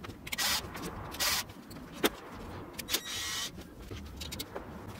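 Gloved hands handling the metal frame and parts of a disassembled copier fuser unit: a few short rustling bursts, the last and longest about three seconds in, and several sharp clicks of parts knocking together.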